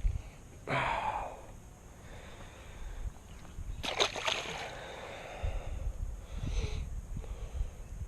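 A small bass, hooked on a soft-plastic worm, splashing at the surface in a few short bursts as it is reeled in, the sharpest near the middle, over low wind rumble on the microphone.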